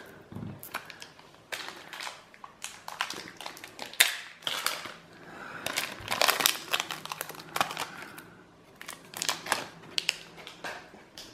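Foil wrapper of a Panini Prizm basketball card pack crinkling as it is torn and pulled open by hand, in a string of irregular sharp crackles.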